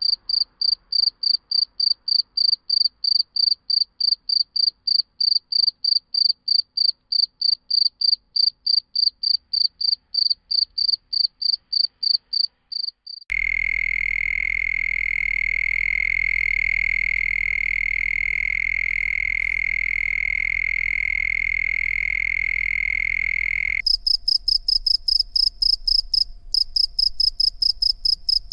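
Crickets calling in three spliced recordings: first a high, evenly pulsed chirp at about three to four pulses a second; about 13 seconds in it cuts abruptly to a steady, lower-pitched continuous trill; about 24 seconds in it cuts to another high pulsed chirp, slightly faster.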